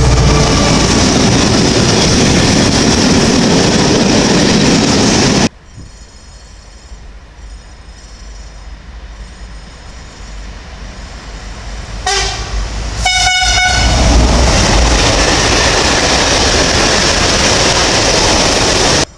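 A train passing close by at speed, a loud steady rush of wheels on rail, cuts off suddenly. A second train then approaches, gives two short horn blasts about a second apart as a driver's greeting, and rushes past loudly.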